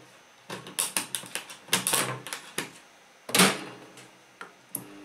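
Sharp microwave oven's mechanical control knob being turned, with a quick run of detent clicks and one louder clack about three and a half seconds in. Near the end the oven switches on and runs with a steady low hum.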